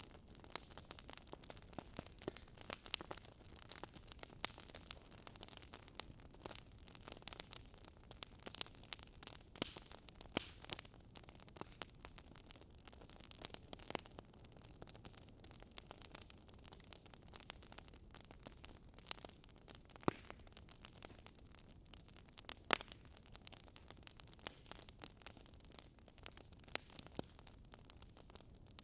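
Wood fire crackling in a fireplace: irregular sharp pops and snaps over a soft hiss, with a couple of louder pops about two-thirds of the way through.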